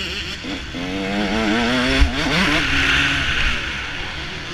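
Motocross bike engine heard from on board, its pitch rising and falling as the throttle is worked, with a sharp thump about two seconds in. Wind buffets the microphone, loudest near the middle.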